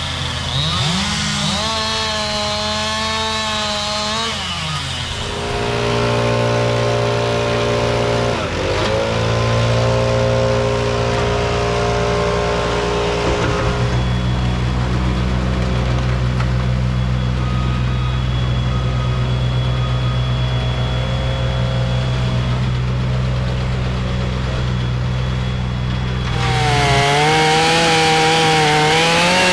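Chainsaw engine running and revving in wavering surges at the start and again near the end, with a heavier machine engine running steadily and low through the middle.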